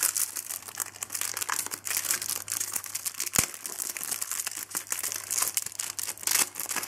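Foil trading-card packet being torn open and crinkled by hand, a continuous crackling rustle with one sharp tap about halfway through.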